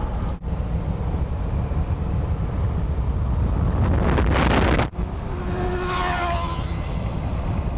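Car driving on the road, heard from inside: steady low road and engine rumble with wind noise. A louder rush of wind noise builds about four seconds in and cuts off abruptly just before the five-second mark.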